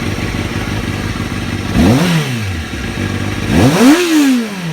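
2005 Kawasaki ZX-6R 636's inline-four engine idling and blipped twice: the revs climb and fall back about two seconds in, then climb higher near the end and drop back toward idle.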